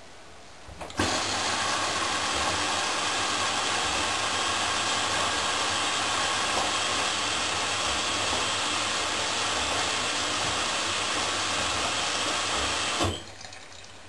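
Water rushing into a Candy GO4 1274 LH GrandO Plus washing machine through its inlet valve during the wash: a loud, steady hiss that starts abruptly about a second in and cuts off suddenly near the end.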